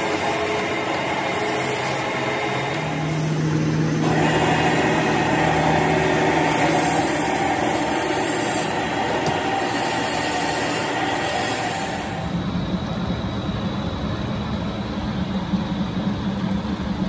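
Metal lathe running while a twist drill in the tailstock bores into a spinning steel workpiece: a steady machine drone with the rasp of the cut. The sound shifts abruptly about four seconds in and again about twelve seconds in.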